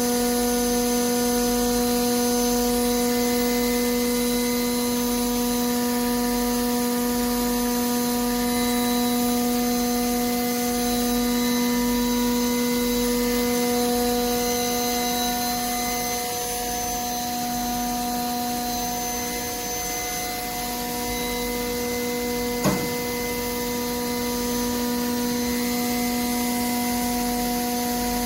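C.B. Ferrari ML 45 five-axis machining center running with a steady hum of several even tones. A single short knock sounds about three-quarters of the way through.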